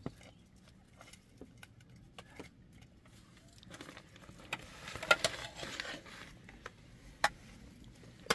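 A metal spoon clinking and scraping against a metal serving platter and ceramic plates as rice is dished out, in scattered light clicks, with sharper clinks about five and seven seconds in.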